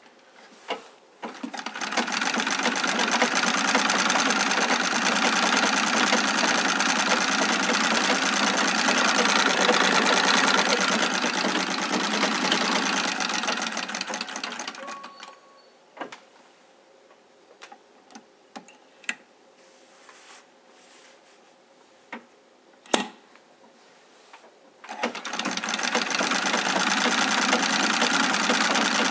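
A 1920 Singer 66 sewing machine driven by its foot treadle, stitching at a steady, even speed. It stops about halfway through, leaving a few sharp clicks, then starts stitching again near the end.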